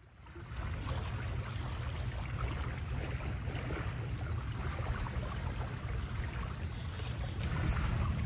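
Wind buffeting the microphone outdoors, a rough rumble that grows stronger near the end, with a small bird giving short, quick runs of high chirps a few times.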